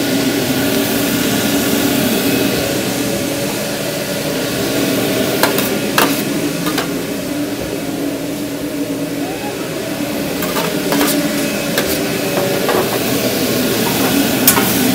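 Beef and vegetables sizzling on a hot grill with garlic butter, nearly cooked. A few sharp clicks and taps of utensils on the metal come through the steady sizzle, over a low hum underneath.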